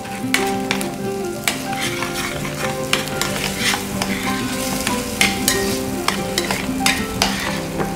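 A metal spoon stirring diced potatoes in cream in a stainless steel saucepan, clinking and scraping against the pan many times over a soft, steady sizzle.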